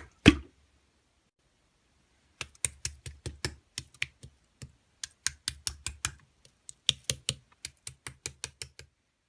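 A rapid run of short, sharp clicks, about five a second, starting a couple of seconds in and stopping shortly before the end.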